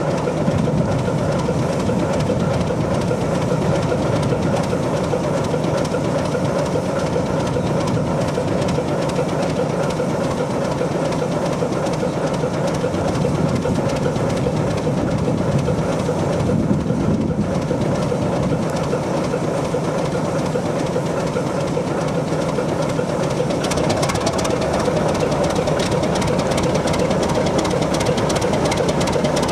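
ČKD T669 diesel-electric locomotive's six-cylinder diesel engine running steadily while the locomotive stands still, with an even low hum and drone throughout.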